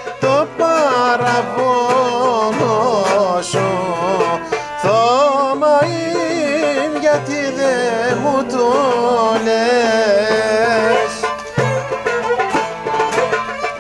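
Live Greek folk band playing an instrumental passage: violin, lute and hand percussion, with a melody full of fast turns and slides over a steady beat.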